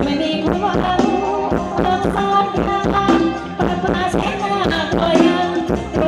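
Loud live band music for Thai ramwong dancing, with a steady beat about twice a second.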